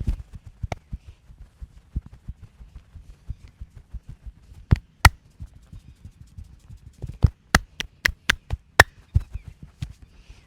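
Hands massaging, with rapid soft patting and tapping on skin close to the microphone. Several sharp slaps or claps stand out: two about halfway through, then a quick run of about six near the end.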